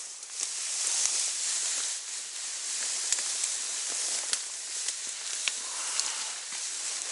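Flowing trout-stream water giving a steady hiss, with scattered small clicks and splashes through it.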